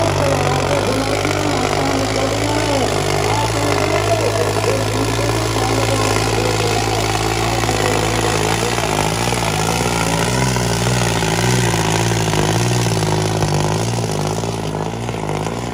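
New Holland 3630 tractor's three-cylinder diesel engine running hard under heavy load while pulling a disc harrow through ploughed soil. It is loud and steady, and its pitch wavers up and down as the load changes.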